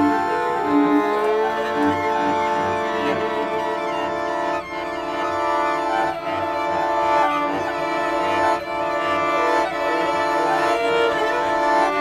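Background music with long held notes, string-like in tone.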